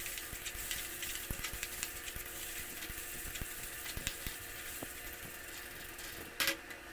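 Chopped onions frying in oil in an iron kadhai, a faint steady sizzle, with frequent light clicks and scrapes of a metal spatula against the pan as they are stirred. A short louder scrape comes about six and a half seconds in.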